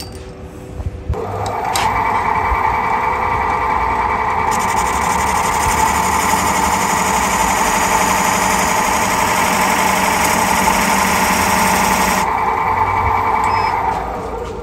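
Wood lathe running with a purpleheart handle spinning in the chuck, starting up about a second in. Through the middle a turning chisel cuts into the end of the wood, adding a harsh scraping hiss over the lathe's steady whine, before the lathe winds down near the end.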